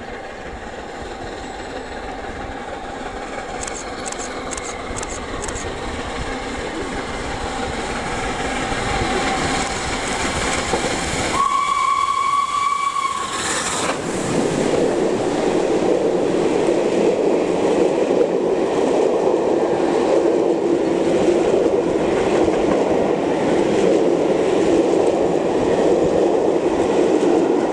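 LNER A3 steam locomotive 60103 'Flying Scotsman' approaches working hard, growing steadily louder, and about eleven seconds in gives one two-second blast on its whistle. It then passes close by, and its train of coaches runs past with a loud, steady rolling noise.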